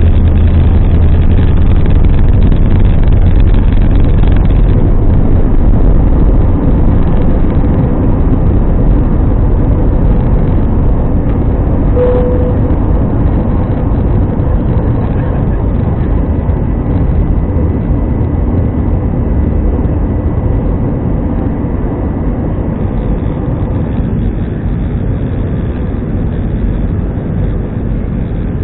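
Cabin noise of an Airbus A320-214's CFM56-5B engines at takeoff thrust through the end of the takeoff roll, liftoff and initial climb: a loud, steady noise of engines and airflow. A low rumble from the wheels on the runway fades out in the first few seconds, and the whole sound grows gradually quieter as the aircraft climbs. A short single tone sounds about twelve seconds in.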